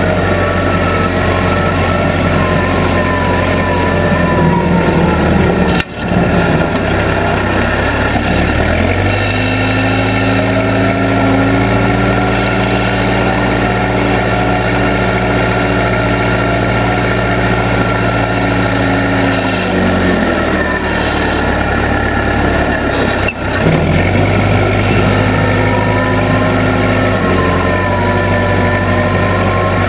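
Case 580B backhoe's engine running steadily, its speed changing as it works: it settles to a lower, even note for about ten seconds in the middle, then picks up again, with a wavering high whine over it near the start and end.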